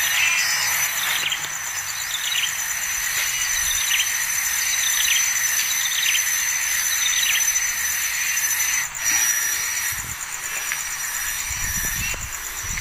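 Small birds chirping: short falling chirps repeated roughly once a second through most of the stretch, over a steady high insect-like drone.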